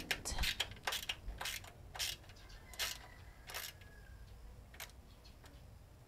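Ratcheting screwdriver clicking as a screw is tightened: a dozen or so sharp, irregular clicks, coming close together at first and thinning out toward the end.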